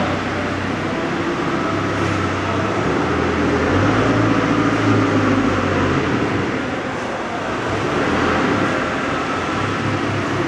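CNC router with a vacuum table cutting wood: a steady machine noise with a low hum and a faint high whine, swelling a little a few times.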